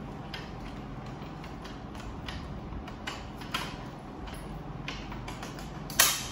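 Small clicks and scrapes of a Ricoh MP C306 copier's parts being handled while the toner hopper housing is taken out, with one sharp, louder click near the end, over a steady low hum.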